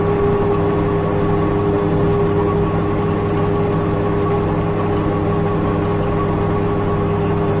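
ELA 10 Eclipse gyroplane's engine and pusher propeller running at steady cruise power: an even drone with a constant mid-pitched tone on top, unchanging in speed.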